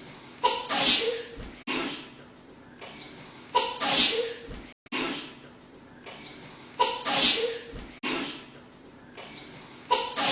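A woman's wet double sneeze played on a loop: a short voiced intake runs into a first sneeze, and a second sneeze follows about a second later. The pair repeats about every three seconds, three times over, with a fourth starting near the end and abrupt cuts where the loop is spliced.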